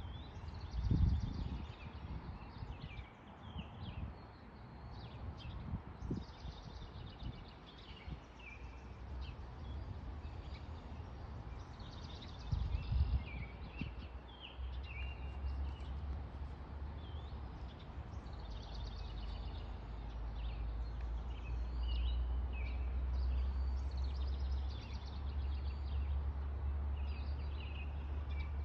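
Songbirds chirping and singing, many short calls throughout. Under them a low rumble grows louder from about halfway, with two brief bumps, one about a second in and one near the middle.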